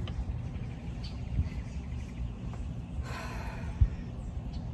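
Outdoor ambience: a steady low rumble, with a short rustle about three seconds in and a single soft knock just after it, from hands working succulent cuttings into potting soil.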